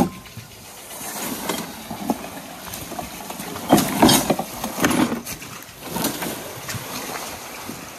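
Footsteps and rustling vegetation as a person walks downhill through brush. The steps are irregular crunches, the loudest cluster about four seconds in.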